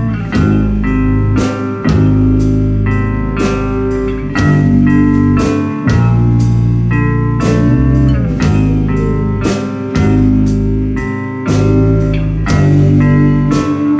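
Live rock band playing loud electric guitars over a drum kit, with sharp drum hits about twice a second.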